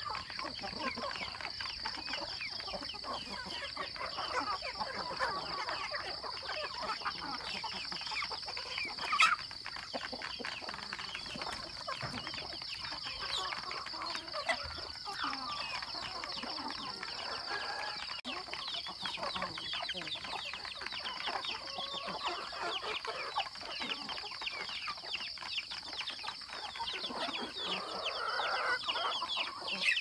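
A flock of young chickens clucking and peeping while they feed, over a steady high-pitched drone. There is a sharp knock about nine seconds in and a louder call near the end.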